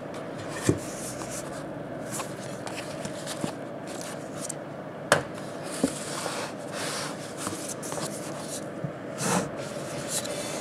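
Handling noise of a Leica D Vario-Elmar 14-150mm zoom lens and its leather pouch: rubbing and scraping with a few sharp knocks as the lens is gripped and set on a table, over a steady faint hum.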